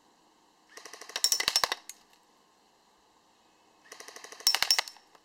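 ICS L85A2 Carbine airsoft AEG firing two short full-auto bursts, each about a second of fast, sharp clicks, about three seconds apart.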